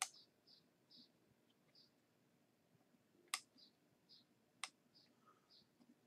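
Faint clicking from working a computer: three sharp clicks, at the start, about three and a third seconds in and about four and a half seconds in, among soft high ticks roughly every half second.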